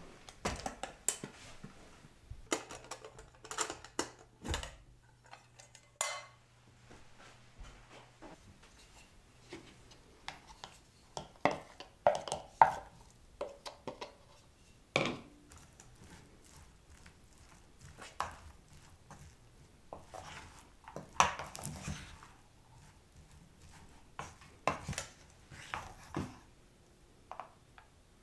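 Cookware clatter: the metal lid of an aluminium mess tin is lifted off, then a wooden rice paddle scrapes and knocks against the metal pot as cooked rice is stirred and scooped out. Irregular clicks and knocks come and go, with the sharpest few about halfway through.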